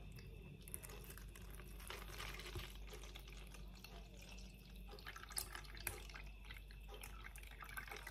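Liquid jelly mixture pouring in a thin stream from a plastic measuring jug into a plastic tub: a faint, steady trickle with a few small drips.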